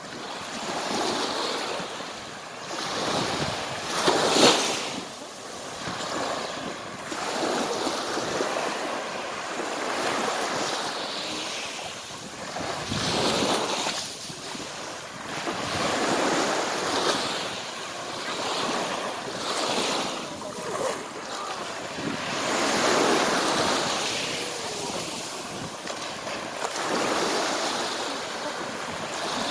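Small waves breaking and washing up a pebble beach, swelling and falling back every two to three seconds, with the loudest wash about four seconds in.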